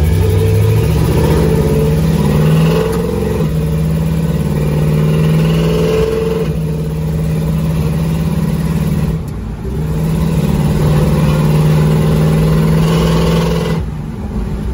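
The 1969 Oldsmobile Cutlass's Rocket 350 V8 running under load as the car drives down the street, heard from inside the cabin. Its note holds fairly steady, with a brief drop about nine and a half seconds in, and it eases off near the end.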